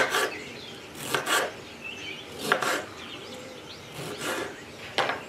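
Kitchen knife cutting cherry tomatoes into wedges on a cutting board: five short rasping cuts about a second or so apart.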